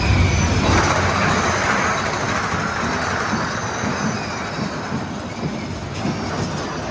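Big Thunder Mountain Railroad mine-train roller coaster cars running along the track: a heavy low rumble that drops away about a second in, then a steady rushing clatter of wheels on rail that slowly fades.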